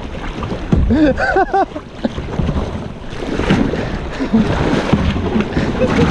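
Water rushing and splashing against a Pelican kayak's bow as it is paddled hard through the wakes of other kayaks, with wind buffeting the microphone. A short wordless voice cuts in about a second in.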